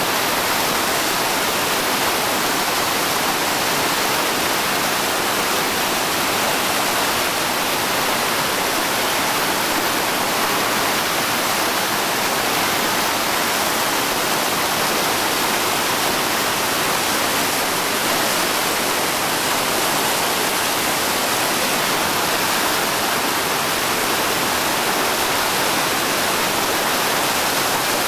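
Whitewater rapids rushing steadily, a loud, even wash of churning water that does not change.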